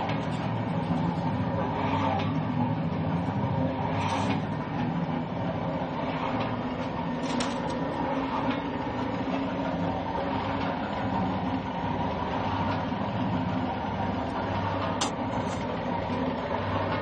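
Pan mixer running: a 3 hp Crompton electric motor driving the mixing blades through a reduction gearbox in a steel pan, giving a steady mechanical hum. A few light knocks are heard now and then.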